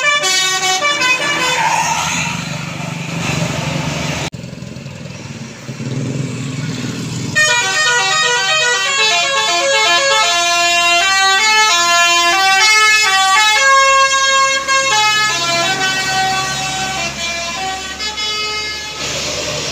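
Basuri multi-tone 'telolet' horn on a tour bus, playing a quick tune of short stepped notes for about ten seconds, after several seconds of bus engine and road noise.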